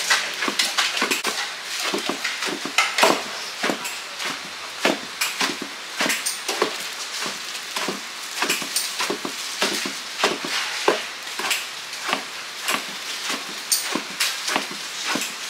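Kitchen work: a steady run of sharp wooden knocks, about two or three a second and uneven in strength.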